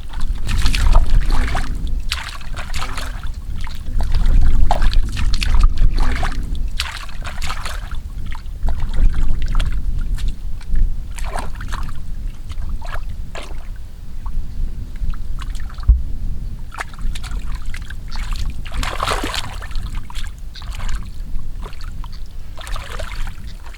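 Shallow muddy water sloshing and splashing in irregular bursts, as someone wades and works through it by hand, over a steady low rumble.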